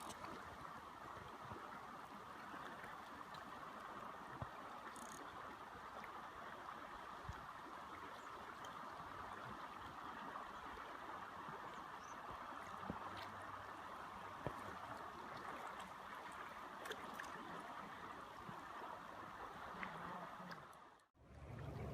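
Steady rush of flowing river water, with a few faint clicks; the sound drops out briefly near the end.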